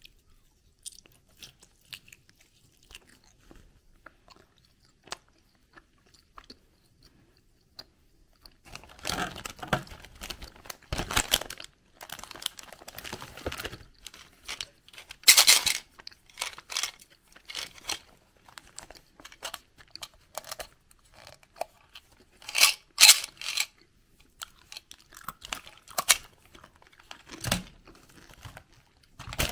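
Crinkly plastic candy wrappers rustling and crackling as they are handled, with faint clicks and taps at first. The crackling then comes in irregular bursts, with the sharpest crackles about halfway through and again a few seconds later.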